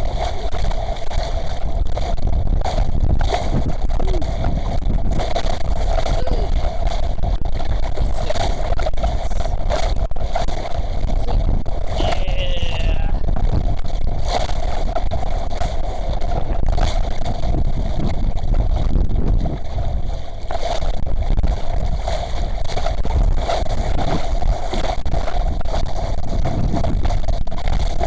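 Wind buffeting the microphone and water rushing and splashing against the hull of a small sailing yacht driven hard in strong wind and choppy waves, with a steady hum underneath.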